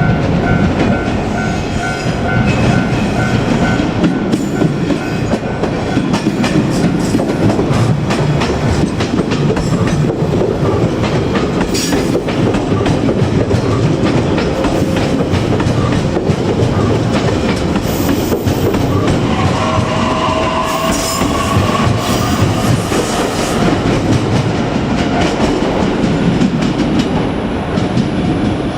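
JR Kyushu 817-series electric multiple unit running past at a level crossing, its wheels clacking over the rail joints. A level-crossing warning bell rings in even pulses for the first few seconds, and a short whine comes in about twenty seconds in.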